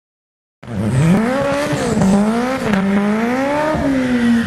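Import drag car doing a burnout: the engine is held high and revved up and down with the tyres spinning and squealing. It starts abruptly about half a second in.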